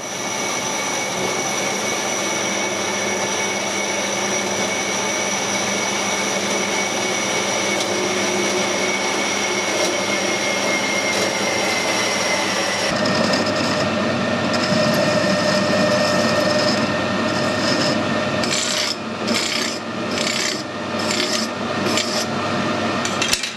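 Horizontal metal-cutting band saw running and cutting through a metal tube, a steady noise with a faint whine, which changes about halfway through. Near the end a flat file rasps across metal in a run of short strokes, about two a second.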